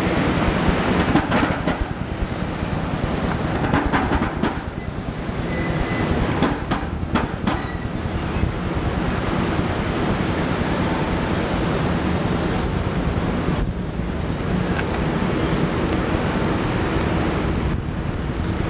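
Steady city street traffic noise, with cars passing and a continuous low rumble. A few short knocks or clicks come through in the first half.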